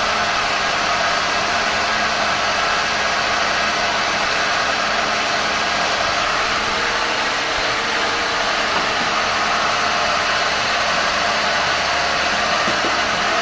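Cotton candy machine running on a test, its spinning head whirring steadily at an even pitch and level.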